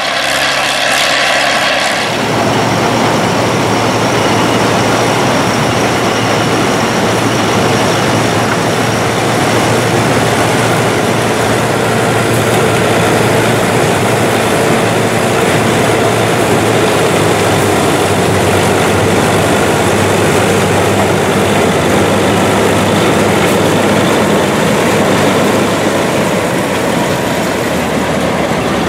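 Case tractor engine running steadily under load as it pulls a J.I. Case corn picker through standing corn, with the picker's gathering and elevator mechanism running alongside. The sound changes about two seconds in and then holds steady and loud.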